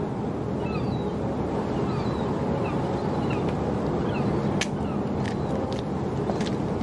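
Harbour ambience: a steady low rumble with small birds chirping in short falling calls and a few faint clicks.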